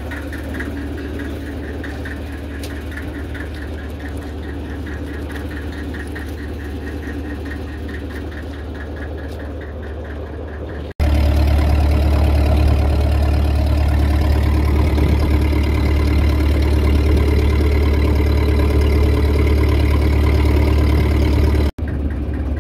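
Fishing boat's engine running steadily with a deep hum. It jumps abruptly louder about halfway through, then drops back at another abrupt break near the end.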